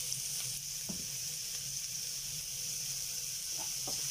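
Chopped onions and garlic sizzling steadily in hot oil in a frying pan, with a few soft scrapes of a wooden spatula stirring them, once about a second in and again near the end.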